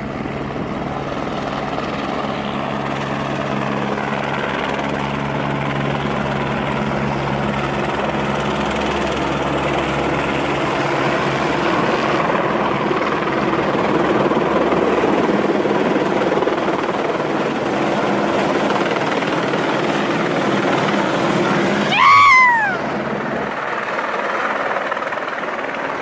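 Firefighters' helicopter flying low overhead, its rotor running steadily and slowly getting louder as it comes down to hover low. About 22 seconds in, a brief loud falling whistle-like tone cuts across the rotor noise.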